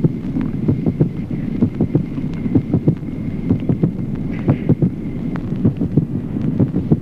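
Recorded heart sounds: repeated low beats, with the second heart sound plainly and constantly split into two parts, as in left bundle branch block. A steady low hiss runs underneath.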